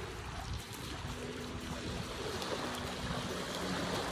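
Small waves lapping on a sandy river shore, with wind noise and a faint steady hum underneath.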